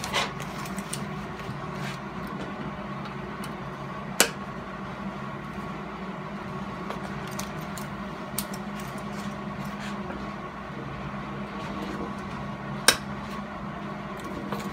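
Steady hum with a thin high tone, broken by two sharp metallic clicks, one about four seconds in and a louder one near the end, as hand tools are handled around a welded-on broken exhaust manifold stud.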